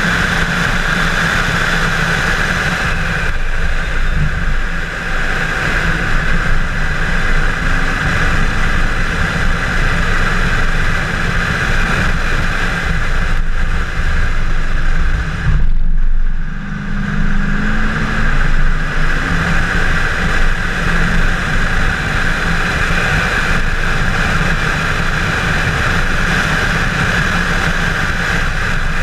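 Chevrolet Camaro 1LE at speed on a road course: engine running hard under a dense, steady rush of road and wind noise, with a brief dip just past halfway.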